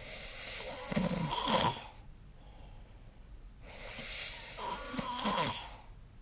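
A person snoring in sleep: two snores, each about two seconds long, with a quieter gap of about two seconds between them. Each snore grows louder toward its end.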